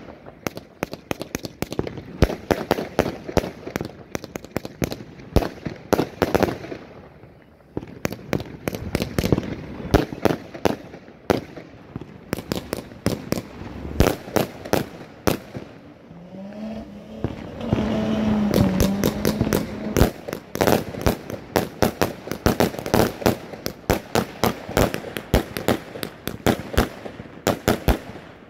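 Lesli De Directeur compound firework, 100 shots of 20 mm calibre, firing in quick succession: a rapid, continuous string of launch thumps and bangs of bursting shells, with a short lull about a quarter of the way through. A low droning tone is also heard for about three seconds past the middle.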